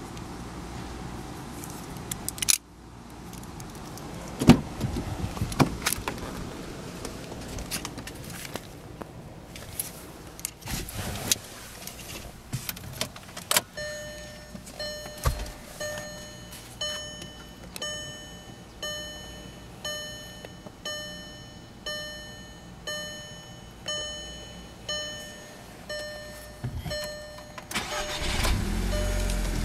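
Keys jangling and clicks of the door and handles on a 2007 Volkswagen Mk5 Golf GTI. Then the dashboard warning chime dings about once a second, each ding fading, for about thirteen seconds. Near the end the 2.0-litre turbocharged four-cylinder cranks and starts.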